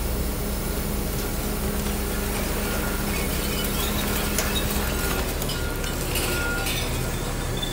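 Garbage truck engine running while its ejector pushes a load of recyclables out of the open tailgate, with clinks of cans and bottles tumbling onto the pile through the middle stretch.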